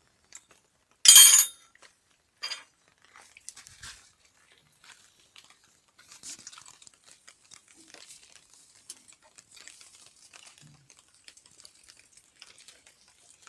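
Metal tools and fittings clinking and being handled: one loud clatter about a second in, a smaller clink a moment later, then faint clicks, scrapes and rattles.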